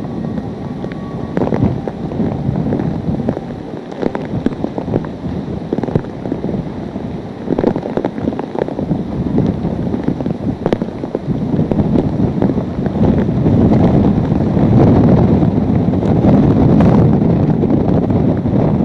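Hurricane-force wind gusting hard against the microphone, a loud rushing buffet with crackles. The gusts build and are strongest over the last several seconds.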